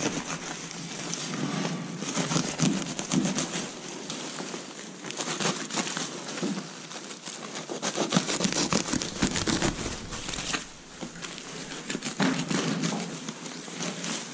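Aluminium foil jacket of an insulated flexible ventilation duct crinkling and rustling as it is handled and pulled back from the insulation. The crinkling comes unevenly, louder and softer by turns.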